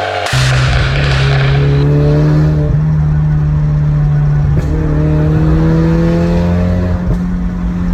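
Ford Mustang 2.3 EcoBoost turbocharged four-cylinder with a pop-and-crackle exhaust tune, pulling under load. Its pitch climbs steadily, breaks off briefly with a sharp snap about halfway, then climbs again until a second snap near the end, as in upshifts while accelerating.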